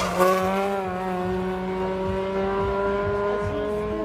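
Race car's engine passing close by under steady high revs. Its note drops as it goes past just at the start, then holds steady, easing slightly lower as the car pulls away down the track.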